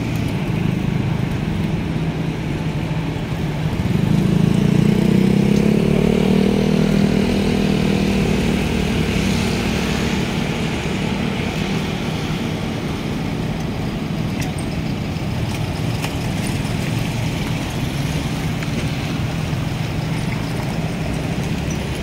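A road vehicle's engine runs nearby with a steady hum over general street traffic noise, swelling louder and slightly higher about four seconds in, then settling back.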